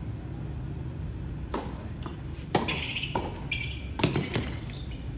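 Tennis ball struck by rackets and bouncing on the hard court during a doubles rally: several sharp pops, starting about a second and a half in.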